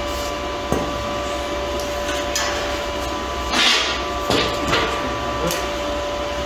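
Plasma-cut sheet-steel grill panels clanking and scraping as they are slotted together by hand: a handful of sharp metal knocks, the loudest about three and a half seconds in, over a steady shop hum.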